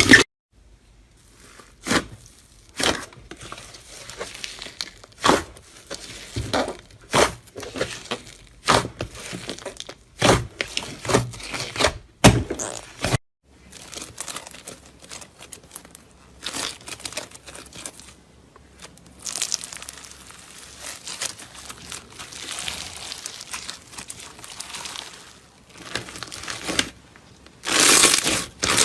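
Slime being squeezed and pressed by hand, giving irregular crackling pops and clicks. These turn to denser, longer crackly squishes in the second half.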